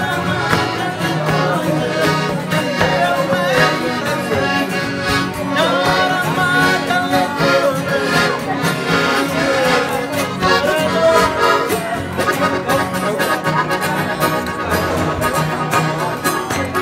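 Piano accordion playing with a small live band, a steady beat running under the tune.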